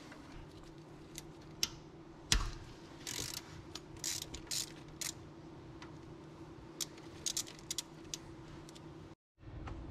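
Hand socket ratchet clicking in short uneven runs as it loosens the timing belt tensioner nut, with a single sharp clack about two and a half seconds in.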